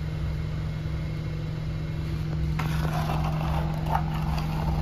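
A steady low mechanical hum with a rumbling undertone. From about two and a half seconds in, light scraping and a few small clicks as a die-cast toy car is pushed over corrugated cardboard.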